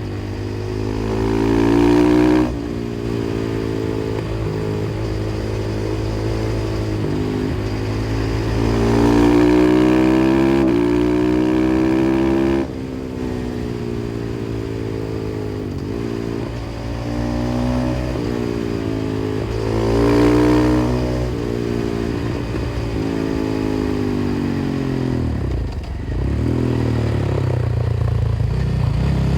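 KTM 500 EXC-F single-cylinder four-stroke with an FMF exhaust pulling hard, its pitch climbing and then dropping suddenly at each upshift, about two and a half and thirteen seconds in. Later the engine note falls away as the bike slows, then rises again under acceleration near the end.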